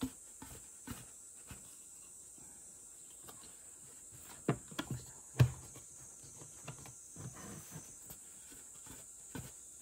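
Knocks and clunks of an aluminium bread-machine pan being handled and its bottom shaft worked to free a stuck loaf, the loudest knocks about four and a half and five and a half seconds in.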